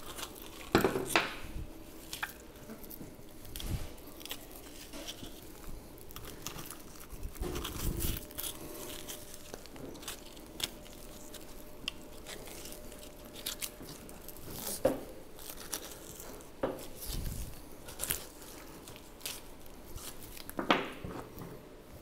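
Boning knife cutting through raw beef and muscle being pulled and torn away from a beef round, with scattered short clicks and a few low thumps.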